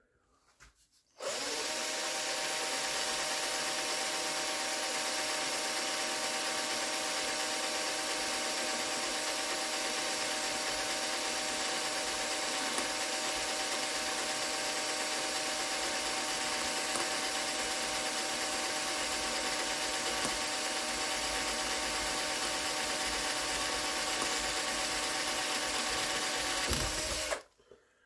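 An electric power tool running at a steady, unchanging speed with a hiss over it. It starts about a second in and stops shortly before the end.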